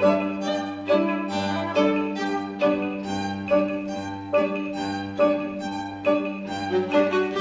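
A chamber string ensemble of violins, viola and cello plays a pulsing passage: an accented chord repeats a little more often than once a second over a sustained low note.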